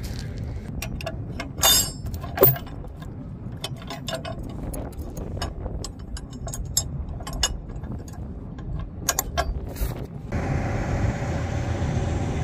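Steel tie-down chain clinking and clanking against a chain binder, hooks and the wooden trailer deck while a load is chained down, with two loud metal clanks about two seconds in. About ten seconds in it gives way to a steady low rumble.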